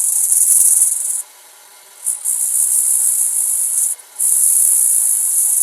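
120-grit abrasive on a sanding arbor rubbing against the inside bottom of a wooden vessel spinning on the lathe: a steady high hiss. It breaks off for just under a second about a second in, and again briefly about four seconds in, as the abrasive is lifted off the wood.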